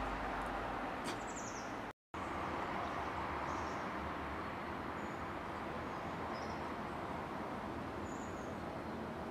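Steady distant traffic noise with a few faint, short high bird chirps now and then. The sound drops out completely for a moment about two seconds in.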